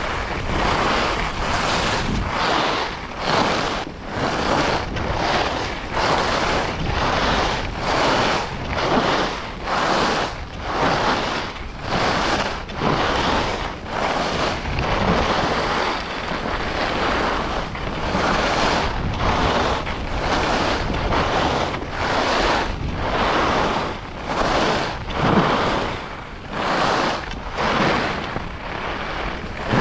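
Skis carving short turns down groomed packed-powder corduroy: a rushing edge scrape that swells with each turn, about one a second, mixed with wind rushing over the camera's microphone at speed.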